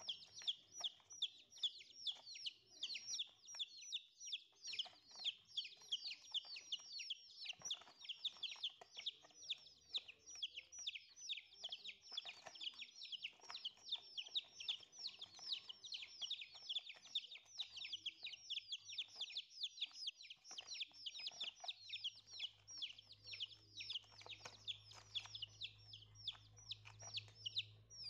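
Several domestic chicks peeping constantly, a dense stream of short, high, falling cheeps, several a second.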